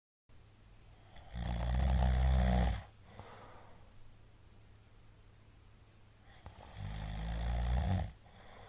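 A middle-aged man snoring loudly in his sleep: two long snores about five seconds apart, the first the louder, each a low, evenly pitched rumble, with quiet breathing between them.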